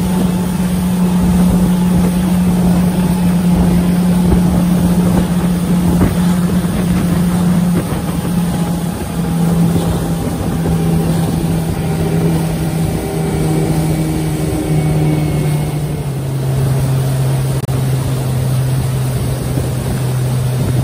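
Motorboat engine running steadily at speed, with water rushing and spraying past the hull. The engine note drops a step about three-quarters of the way through.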